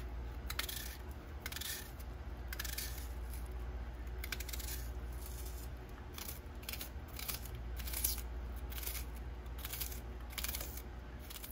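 Kitchen knife slicing through a raw onion held in the hand, a string of short, sharp cuts at about one to two a second, over a steady low hum.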